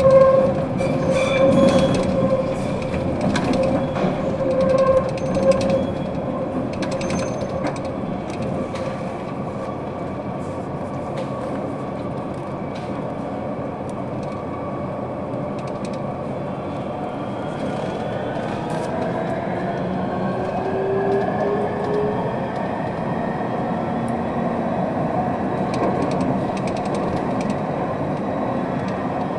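Barcelona Metro Line 10 train at its terminus: a steady electrical hum with scattered clicks, then, about two-thirds of the way in, the whine of its electric traction motors rising in pitch as a train starts moving.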